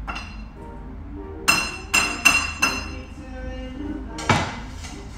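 A spatula knocking against a frying pan while stir-fried food is scraped out onto a plate: four quick ringing clinks, then one more over a second later, over background music.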